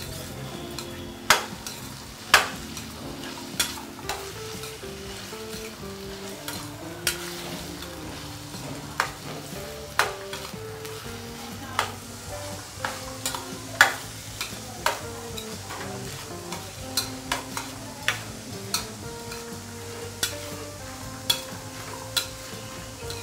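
Chopped capsicum, spring onion, tomato and peas sizzling in oil in a stainless steel pan as they are stirred with a steel spoon. The spoon clinks sharply against the pan at irregular moments over a steady frying hiss.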